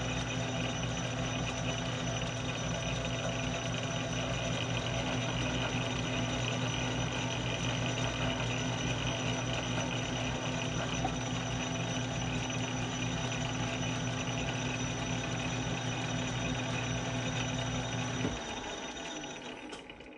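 Metal lathe running steadily during a thread-cutting pass, its motor and gear train humming with a few constant tones. The lathe is switched off about 18 seconds in and winds down to a stop.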